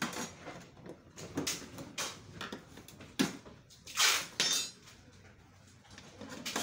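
Irregular clicks, knocks and short scraping rustles of hands handling a flat-screen TV's plastic back casing and internal parts. The loudest is a brief scraping rustle about four seconds in.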